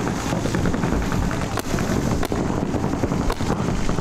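Wind buffeting the microphone, with a handful of sharp pops scattered through from paintball markers firing in the drill.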